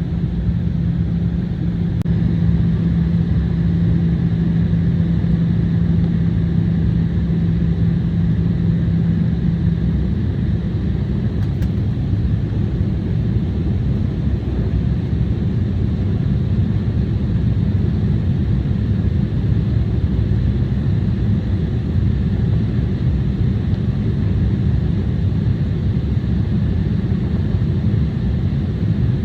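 Steady jet engine and airflow noise heard from inside the cabin of an Embraer 175 airliner. A steady low hum under the noise stops about ten seconds in.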